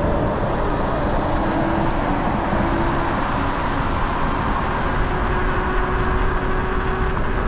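Steady riding noise from an electric bike: wind rushing over the microphone and tyres rolling, with a faint steady whine from the Bafang G62 hub motor.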